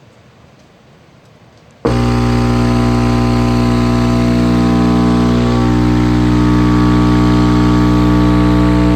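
Crossfire XS V4 15-inch subwoofer wired straight to household mains power, switching on about two seconds in with a loud, steady deep hum and buzzing overtones as the cone is driven by the AC current.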